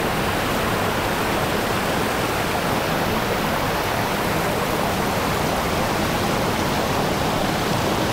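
Water of the Oirase mountain stream rushing steadily, an even unbroken hiss.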